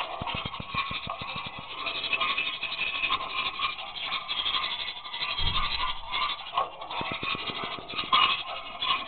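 Scraping and rattling noise, with a run of rapid clicks near the start, a low thump about five and a half seconds in, and more rapid clicks about seven seconds in.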